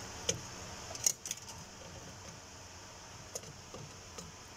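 Scattered light clicks and taps of handling, the loudest a quick cluster about a second in and a few single ticks later, over a steady faint hiss.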